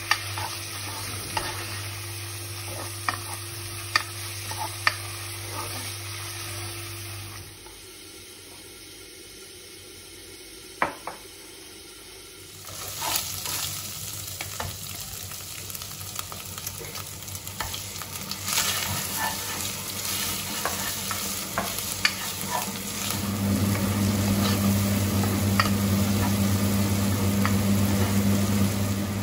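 Food sizzling in a pan while it is stirred, with scattered clicks of a utensil against the pan. A steady low hum runs under the first seven seconds and comes back louder for the last six.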